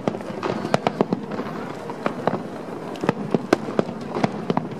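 Aerial firework shells bursting: an irregular string of sharp cracks and bangs, a dozen or so.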